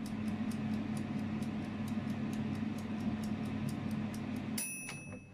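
Tefal air fryer running: its mechanical timer dial ticks rapidly and evenly over the steady hum of the fan. Near the end a single ringing ding sounds, and the ticking and hum stop.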